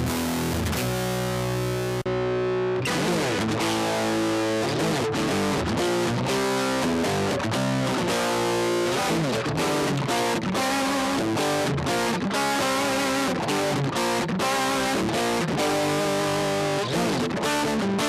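Electric guitar played through a Zoom GFX-8 multi-effects processor with a distorted tone. A chord rings out for the first few seconds, then a fast run of picked single notes follows.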